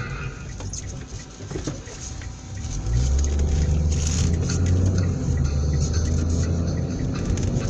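Car on the move: low engine and road rumble, which grows suddenly louder about three seconds in and then holds steady.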